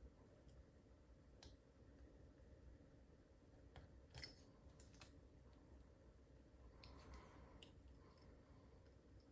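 Faint, scattered clicks and ticks of a lock pick and tension wrench working inside a Master Lock 410 padlock, the sharpest a little after four and five seconds in.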